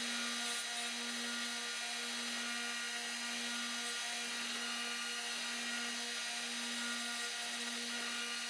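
Combination belt and disc sander running with a steady hum, grinding the sharp tips off small screws held in pliers.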